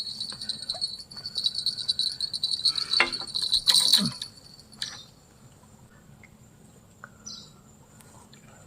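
Insects, cricket-like, trilling in a rapid high pulsing chirr that stops about four seconds in. A few sharp knocks sound just before it stops.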